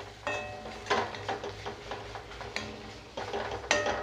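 Steel spatula stirring and scraping onion masala in a metal kadai, knocking against the pan's side about five times, each knock ringing briefly.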